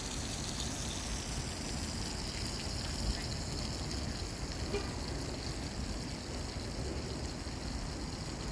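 The Merced River flowing: a steady rushing noise with a low rumble beneath it.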